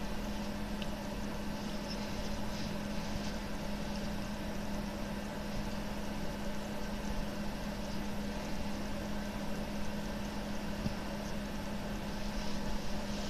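A steady, unchanging hum with a constant low drone under a faint hiss.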